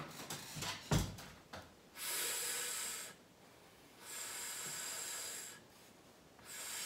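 A woman's voice sounding the letter F as a drawn-out "fff" hiss three times, each about a second long with short pauses between, the first sound of the word "fern" being modelled for spelling. A single knock about a second in.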